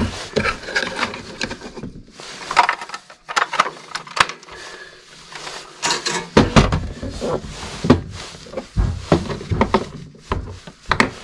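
A plastic portable radio being handled on a wooden window sill, with its batteries taken out and set down: irregular clicks, taps and knocks of plastic and metal cells on wood.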